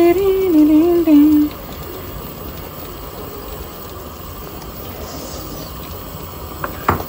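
A person humming a short wavering tune, which stops about a second and a half in. After that there is only a low steady background noise, with a couple of light clicks near the end.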